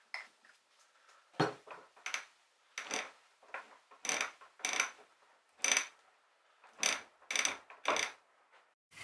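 Screwdriver working the screws in the top cap of a sailboat winch drum: short metal-on-metal clinks and scrapes, irregular, roughly one or two a second with short pauses between.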